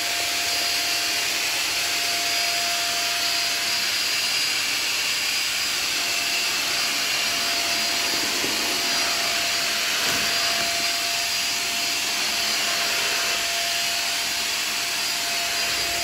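Corded 600 W 2-in-1 upright stick vacuum cleaner running steadily: a constant motor whine over a rush of air, as it is pushed over a tile floor to suck up dry cat kibble.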